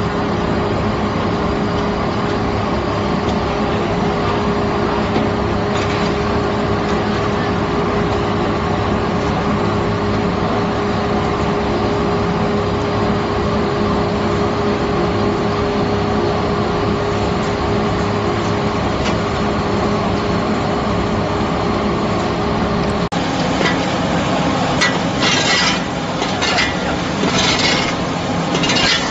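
Industrial sawdust dryer line running: a steady mechanical drone with a steady hum. About 23 s in, the sound changes abruptly, and repeated scraping strokes come over the machinery.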